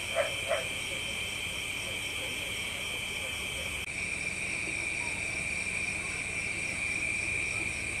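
Steady high-pitched chorus of night insects, one strand of which drops out a little before halfway. In the first half-second come the last of a run of short, lower animal calls repeated about three times a second.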